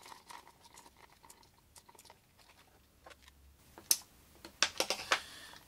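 Faint clicks, scrapes and rustles of a new stator and its wire leads being pushed by hand into a Bosch GWS 17-125 CIE angle grinder's motor housing. A sharper click comes about four seconds in, then a few more clicks just before the end.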